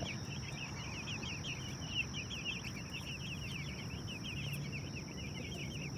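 A flock of young Cornish Cross meat chicks peeping without pause, many short falling peeps overlapping.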